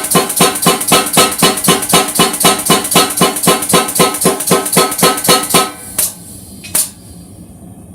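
Power hammer drawing out hot steel for a chef's knife blade: rapid, even blows, about five a second, each with a metallic ring. It stops about six seconds in, strikes once more near seven seconds, and starts again at the end.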